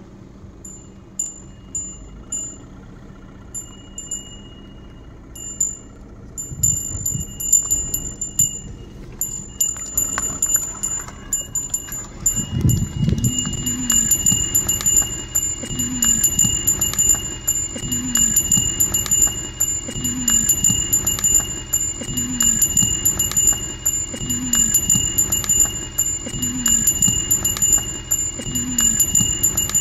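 A bell worn by an ox, jingling and ringing steadily as the animal moves. From about twelve seconds in, a low sound swells and fades about every two seconds beneath the ringing.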